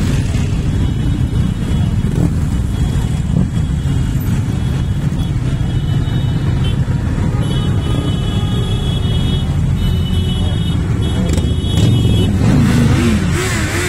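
Many motorcycle and scooter engines running as a column rides slowly past close by, a steady engine rumble. Near the end a nearby bike revs up and down, its pitch rising and falling, and it gets louder.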